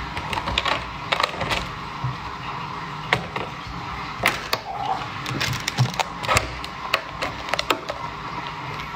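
Durian husk being pried and pulled apart by hand: irregular cracking and snapping of the fibrous rind, with scraping and knocks as the spiky pieces are handled.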